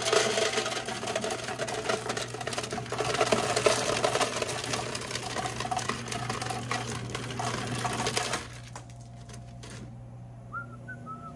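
Ice dispenser running, cubes clattering rapidly down the chute into a plastic pan over a steady low hum. The clatter stops abruptly a little after eight seconds in, followed by a few light clicks.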